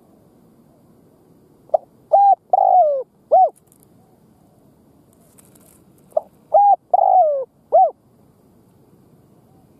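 Spotted dove cooing: two four-note phrases, about 2 and 6 seconds in, each a short note, a clear coo, a longer coo falling in pitch, then a final short coo.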